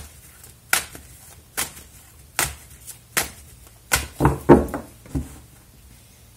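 A deck of tarot cards being handled on a cloth-covered table: sharp clacks about one every 0.8 s, then a quicker cluster of knocks about four seconds in as the deck is split and the cards are set down in piles.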